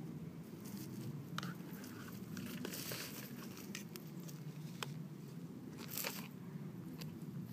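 Small plastic toy scoop digging and scraping in loose potting soil: a scattering of soft scrapes, crunches and light clicks over a low steady background.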